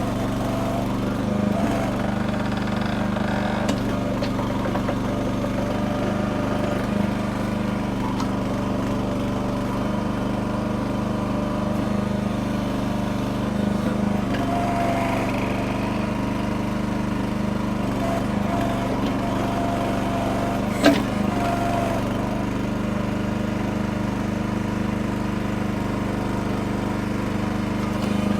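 Small gas engine of a Red Rock mini backhoe running steadily under working load, with a higher whine that comes and goes and one sharp knock about two-thirds of the way through.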